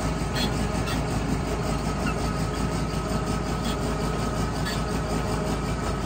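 Engine of a heavy machine running steadily under way, heard from its open cab, with faint clanks and rattles of the machine.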